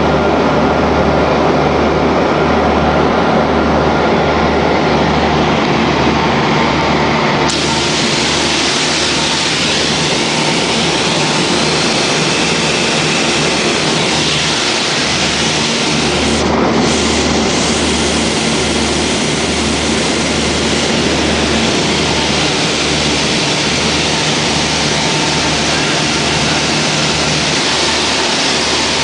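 Cabin noise of a Beechcraft Duchess light twin in flight: its two propeller engines running steadily under a loud rush of air, the low drone pulsing in a slow, regular beat.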